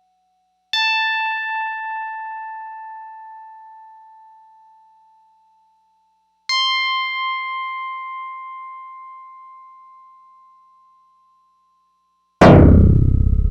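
Korg EX-800 synthesizer sound effects: two bright, bell-like synthesized tones, each struck and fading away over several seconds, the second a little higher in pitch. Near the end comes a loud, deep synthesized hit with a falling sweep.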